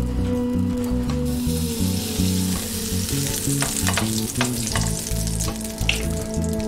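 Butter sizzling with scattered crackles as it melts and foams in a hot frying pan, spread around with a silicone spatula; the sizzle swells about a second in. Background music plays underneath.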